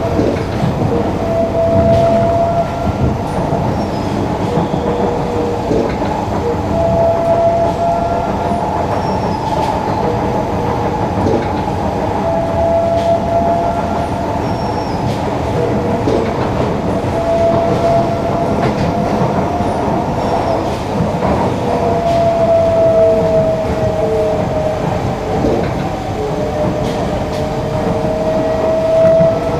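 Singapore MRT train running at speed, heard from inside the carriage: a steady rumble of wheels on rail with faint clicks, and a whining tone that comes and goes every few seconds, rising near the end.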